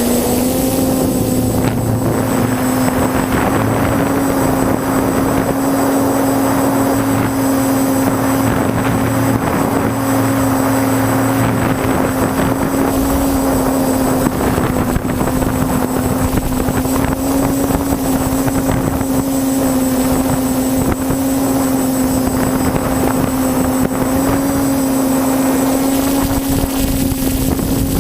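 TBS Discovery quadcopter flying: its electric motors and propellers give a steady buzzing hum over a rush of prop wash. The pitch steps up slightly about half a second in, then holds almost level.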